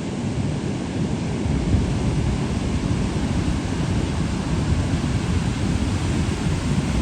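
Giant surf of over 20 feet breaking and rumbling steadily, with wind buffeting the microphone.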